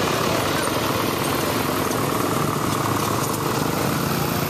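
Several engines running at low speed as they pass: a Ford diesel tractor together with a line of ATVs and small dirt bikes, making a steady, even mix of engine noise.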